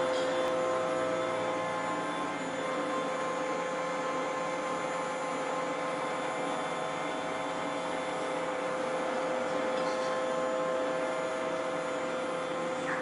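Horizontal CNC induction hardening machine running: a steady electrical hum with a constant higher tone over a steady hiss.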